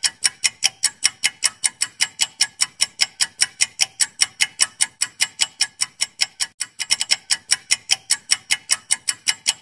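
Clock-ticking sound effect of a quiz countdown timer: crisp, even ticks at about four and a half a second, marking the time allowed to answer, with a brief stumble in the rhythm about seven seconds in.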